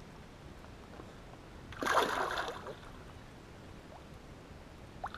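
A hooked northern pike thrashing in shallow water: one splash about two seconds in, lasting under a second.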